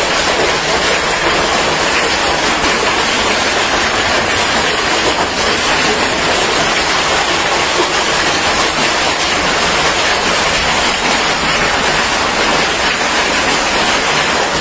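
Hail and heavy rain pouring down onto flooded pavement, a dense, steady noise of countless splashing impacts with no let-up.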